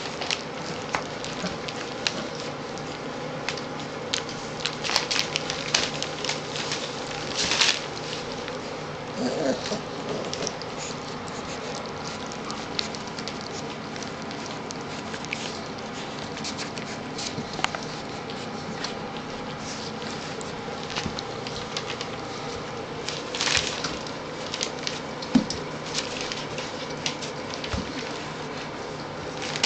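Three-week-old Newfoundland puppies eating scrambled eggs from a stainless steel pan: wet lapping and smacking with many small clicks, and a few louder scuffling bursts.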